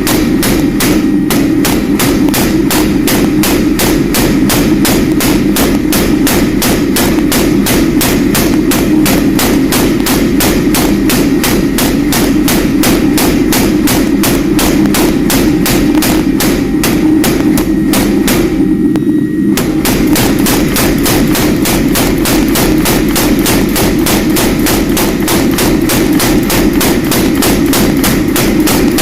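Rapid, even hammer blows on metal, about three to four strikes a second, with a short break about nineteen seconds in, over a steady low hum.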